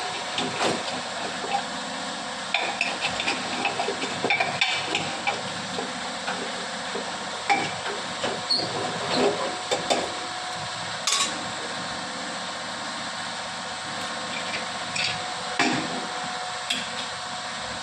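A metal spoon knocking and scraping against a cooking pan at irregular intervals as food is stirred, over a steady hiss.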